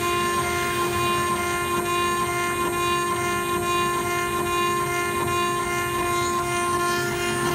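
CNC router spindle running with a steady high whine while its bit carves a relief photo frame into fibreboard, the cutting adding a rough rasp underneath.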